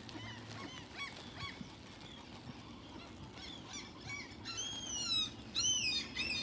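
Ducklings peeping: many short, high-pitched calls that rise and fall, more crowded and louder about four and a half to six seconds in.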